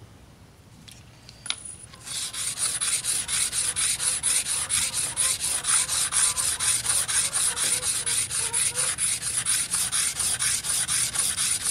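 Steel dowel-machine cutter blade being rubbed quickly back and forth on a wet whetstone: a fast, even rasping stroke rhythm that starts about two seconds in, after a single tap, and stops near the end.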